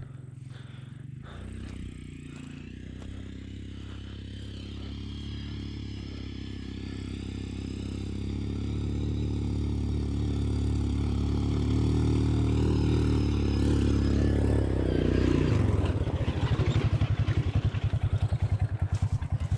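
Quad bike (ATV) engine running under load on a slope, growing steadily louder over about fifteen seconds, then settling into a close, rapid, even pulsing near the end.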